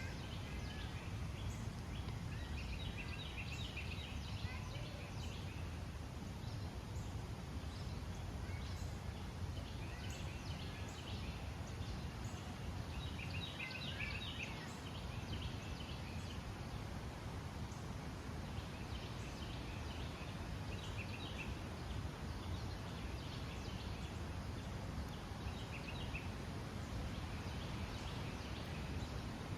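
Woodland ambience: small birds chirping in short bursts of rapid notes every few seconds, over a steady low rumble.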